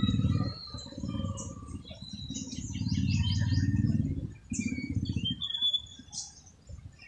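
Small birds chirping, with a low engine rumble underneath that comes and goes in several stretches and dies away near the end.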